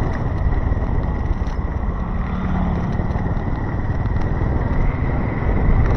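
City street traffic: a steady rumble of passing cars and motorcycles.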